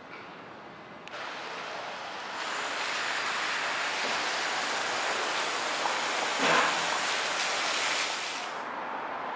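Street traffic noise: a vehicle passing, its road hiss swelling over a few seconds and fading near the end.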